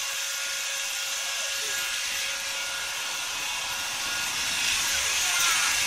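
Electric horse clippers running with a steady buzz as they clip a pony's coat, getting a little louder in the last second or so.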